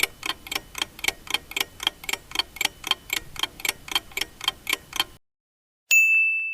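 Countdown-timer clock ticking sound effect, about four even ticks a second, which stops suddenly; a moment later a single bell ding rings out and fades, marking the end of the answer time.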